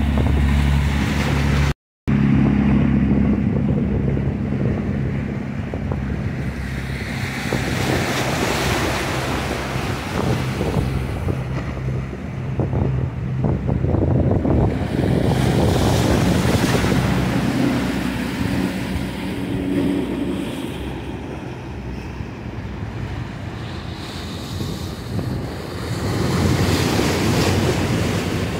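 Motorboat engines running with a low steady hum as boats pass through choppy water, over the wash of waves and wind buffeting the microphone. The sound drops out for a moment about two seconds in.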